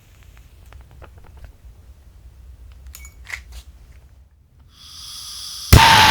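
Handheld gas torch: a few small handling clicks, then gas hissing from the nozzle, then a sharp igniter click near the end and the flame lights, burning loudly and steadily with a whistling tone.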